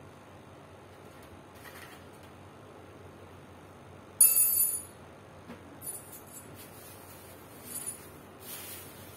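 Metal parts of a stand fan clinking during hand assembly: one sharp, briefly ringing clink about four seconds in, then a few softer clicks and rustles of handling.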